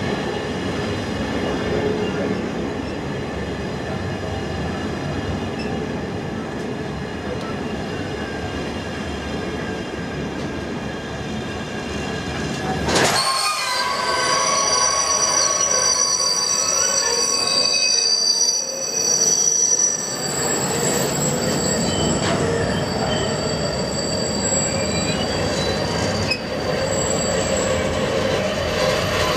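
Container flat wagons of a freight train rolling past at close range, wheels on rail with a continuous rumble and steady high-pitched wheel squeal. About halfway through the rumble thins and the squealing tones stand out more.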